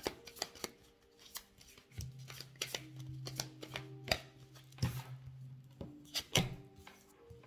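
A deck of tarot cards being shuffled by hand: irregular soft taps and clicks as the cards slide and knock together. A faint steady low tone sits underneath.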